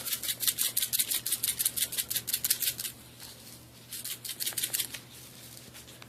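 A shaker of dried Italian seasoning being shaken over meat in a pan: a quick, even rattle of about six shakes a second that stops about halfway through, followed by a few lighter shakes.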